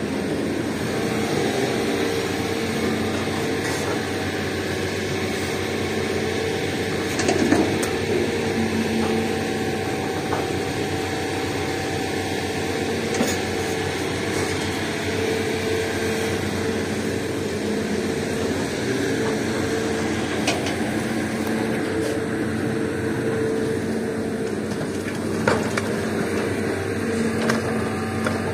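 Komatsu hydraulic excavator working, its diesel engine and hydraulics droning steadily with a hum that swells at times as the arm digs and swings. A few knocks and clatters of red rock being dropped into a dump truck bed, the loudest about a third of the way in.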